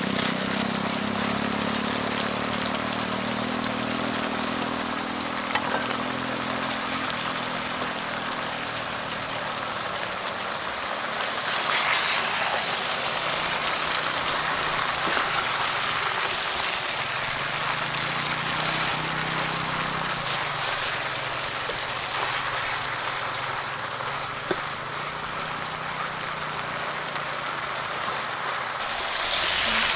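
Eels in sauce sizzling and bubbling in a wok as leafy greens are added and stirred in with a spatula: a steady hiss, with a low hum beneath it and a few light knocks.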